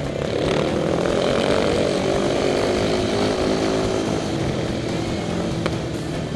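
Single-cylinder speedway bike engines running hard, heard from on board one of the bikes, their revs rising and falling through the bend.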